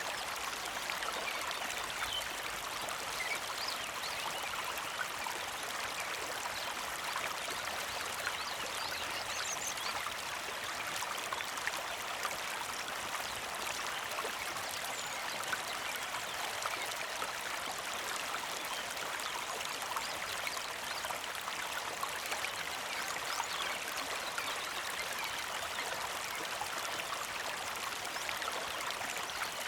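A small creek flowing with a steady, even trickling rush.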